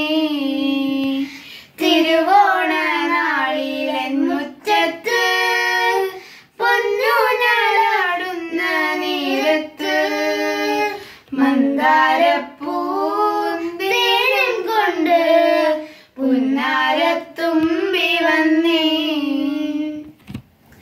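A child singing a Malayalam Onam song solo, phrase after phrase with short breaths between.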